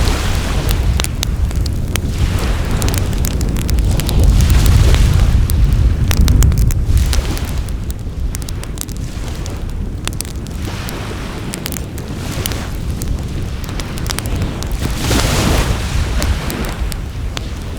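Wood fire crackling, with frequent sharp pops and snaps. Under it a heavy low rumble swells and fades, loudest a few seconds in, and a hissing swell comes near the end.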